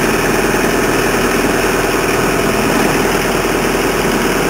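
Vermeer SC60TX stump grinder engine idling steadily at about 1200 rpm.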